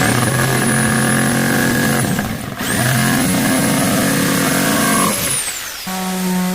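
A handheld power tool run twice in bursts of two to three seconds, its motor whining up to speed, holding steady, then winding down each time. Near the end a different, lower steady machine hum starts.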